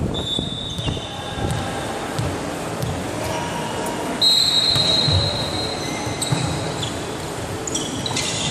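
Ball play on an indoor volleyball court: a series of dull thuds from the ball on the hall floor and off players' hands. Through them run several high, steady tones, each about a second long, the clearest starting about four seconds in.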